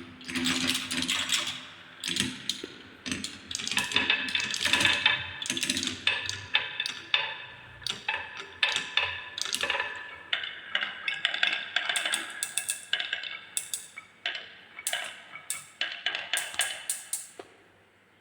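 Marbles rolling and clattering down a wooden marble run: a continuous rattle of rolling with many quick clicks and knocks as the balls hit the track pieces and each other. The clatter dies away shortly before the end.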